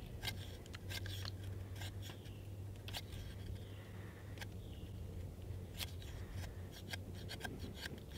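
An ESEE knife blade shaving feather-stick curls off a hard stick of wood, which the carver takes for cedar: a run of short, crisp scraping strokes at irregular intervals, over a steady low hum.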